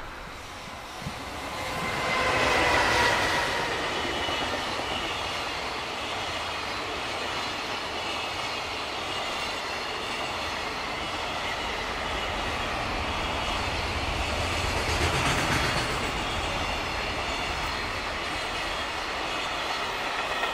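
Electric locomotive hauling a long container freight train past, loudest about two to four seconds in as the locomotive goes by, with a faint whine. The container wagons then follow with a steady rumble and the clickety-clack of wheels over the rail joints.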